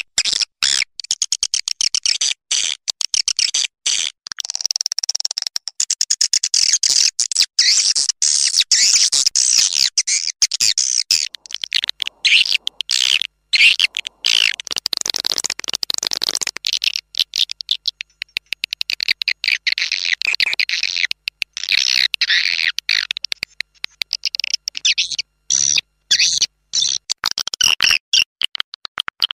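Swiftlet calling sound used to lure swiftlets: dense, high-pitched rapid chirping and twittering that keeps cutting in and out.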